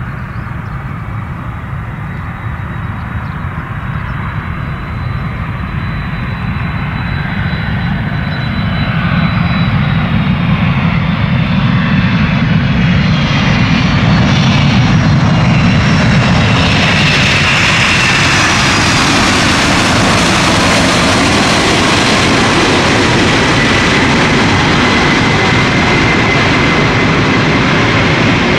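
Boeing 767 twin-engine jet airliner landing: engine whine falling in pitch as it comes in on approach and growing louder, then louder and steady from about halfway through as it rolls down the runway past the listener.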